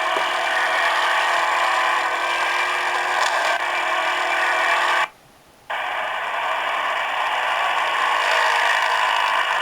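Canned call background noise effect played from a ciPhone clone phone: a steady noisy ambience that starts abruptly, cuts off about five seconds in, and after half a second gives way to a second, duller ambience.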